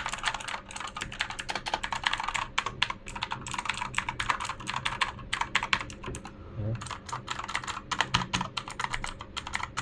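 Typing on a mechanical keyboard with Outemu blue switches: a rapid, uneven stream of sharp clicky keystrokes, with a short lull about six seconds in.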